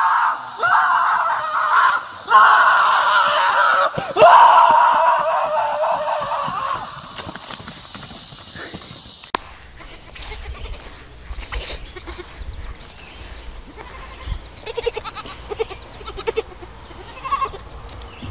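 An animal's loud, drawn-out screaming cries, three or four long ones in a row, fading out after about seven seconds. Then, after a cut, young goat kids give a few short bleats as they trot on grass, over a low rumble.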